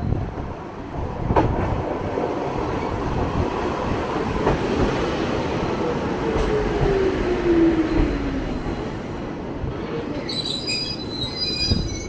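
A Wakayama Electric Railway 'Tama Densha' electric train pulls into the station and slows to a stop. It rumbles with a couple of sharp clacks from the rails, and midway a whine falls in pitch as it slows. Near the end comes a high squeal from the wheels and brakes as it comes to a stop.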